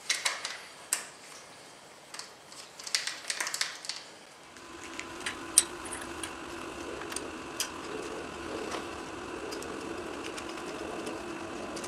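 Small metal clicks and taps as a screwdriver works the screws of a motorcycle muffler's end cap and the metal parts are handled. Partway through, a steady hum comes in beneath the clicks.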